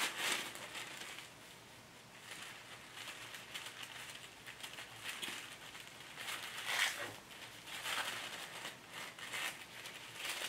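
Tissue-paper sewing pattern and instruction sheet rustling and crinkling as they are handled and folded, off and on, loudest at the start and about seven seconds in.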